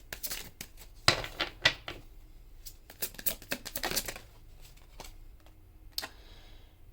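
Tarot cards being shuffled and handled: two runs of quick, papery clicks and flicks, then a few single clicks.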